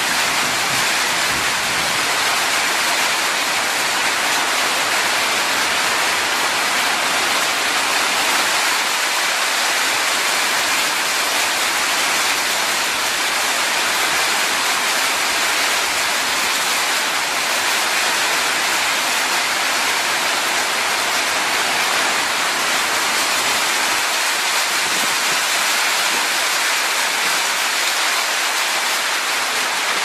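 Steady rain falling, an even hiss with no separate drops or thunder standing out.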